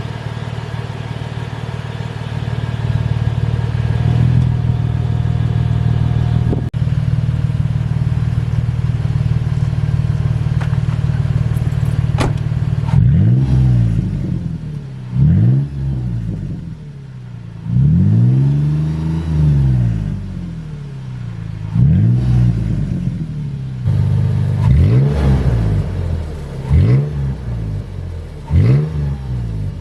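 The 5th-gen Toyota 4Runner's 4.0 L V6 runs through a Carven high-clearance dump-exit cat-back exhaust. It idles steadily for about twelve seconds, then is revved repeatedly in quick rises and falls, with one longer rev near the middle.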